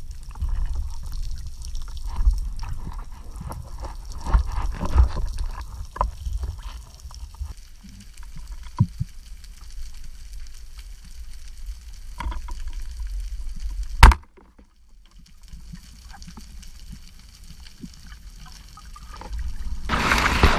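Underwater water noise heard through a freediver's camera housing: a low rumble with watery swishing and scattered small clicks and knocks. About 14 seconds in there is a single sharp crack, the loudest sound, after which it goes much quieter, and near the end a rush of water noise swells up as the camera moves through seagrass.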